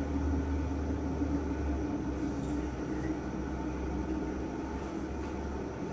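Steady low machine hum with a steady tone above it, with a few faint light clicks of a spoon in a bowl.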